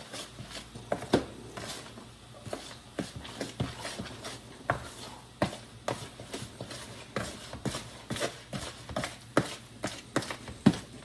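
Wet puppy-food mush of blended kibble, pumpkin and baby food being mashed and stirred by hand in a plastic tub: irregular squelches and knocks against the plastic, a few each second.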